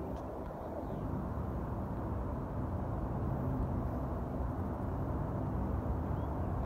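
Distant rumble of a Boeing 777-200ER's twin jet engines from far down the runway, low and steady and slowly growing louder as the takeoff gets under way.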